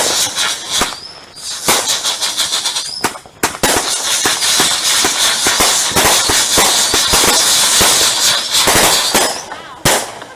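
Fireworks going off in a dense, rapid crackling barrage of many small bangs over a high whistling squeal. The barrage pauses briefly about three seconds in, then runs on as a longer unbroken stretch that ends with a single sharp bang near the end.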